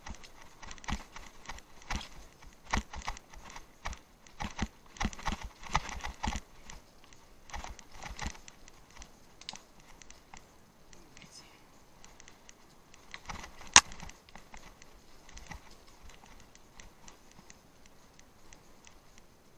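Irregular knocking and clattering, fairly dense at first and then sparser, with one sharp, much louder knock about two-thirds of the way through.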